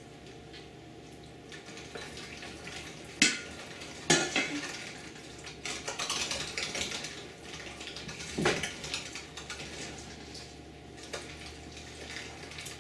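Old hand-crank meat grinder at work as raw gar fish is pushed through it: clanking and scraping, with sharp knocks about three, four and eight seconds in.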